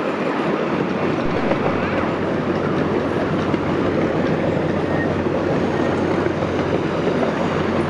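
Miniature park train running along its track: a steady rumble and rattle of the open cars on the rails, over a low, even hum from the small locomotive.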